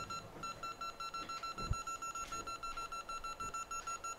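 Rapid electronic beeping from workbench equipment: a steady-pitched beep repeating about six times a second, pausing briefly just after the start and then going on evenly.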